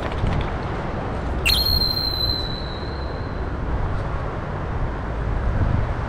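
Steady rushing of river water with an uneven low rumble. About a second and a half in, a thin high whistle sets in and holds for about two seconds.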